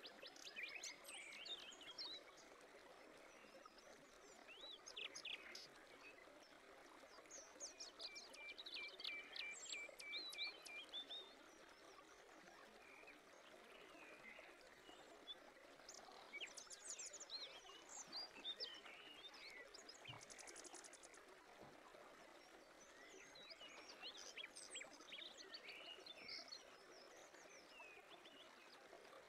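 Faint birdsong: clusters of short chirps and whistled calls, including a quick run of repeated notes about nine seconds in, over a steady soft hiss of outdoor ambience.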